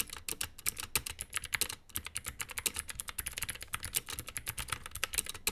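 Fast, continuous typing on a Chinese Geek mechanical keyboard with Gateron switches, a dense run of key clicks.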